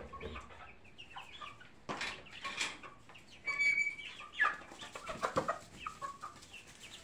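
Young chickens clucking with many short calls, and one longer held call about three and a half seconds in.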